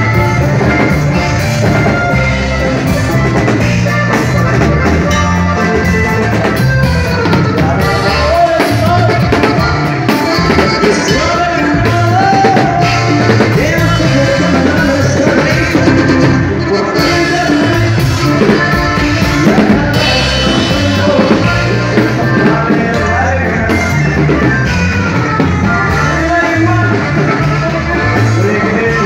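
Norteño band music played loud through a PA system, with a steady drum beat and a melody line running throughout.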